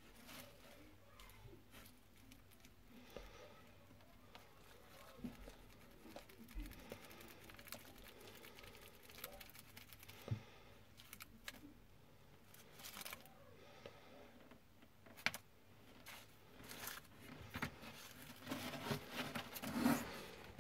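Faint scattered rustles and small clicks of a live locust being handled by fingers. The rustling grows busier near the end.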